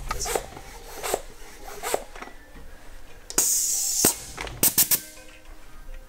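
A short hiss of air at the bicycle wheel's valve from a floor pump, lasting under a second about halfway through, followed by three quick clicks. Before it come a few knocks of the tyre being handled, with background music throughout.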